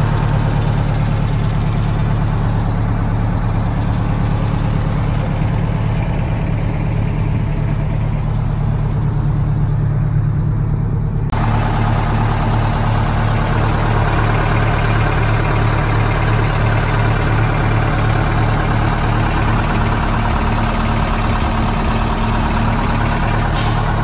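The engine of a 1977 American LaFrance Century Series fire truck idling steadily. About halfway through, its clatter turns sharper and brighter as it is heard close up at the open engine compartment. A short click comes near the end.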